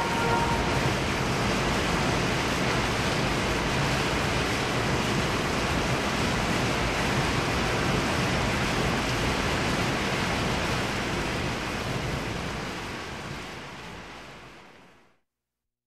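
Rain falling in a city, a steady hiss that fades out near the end.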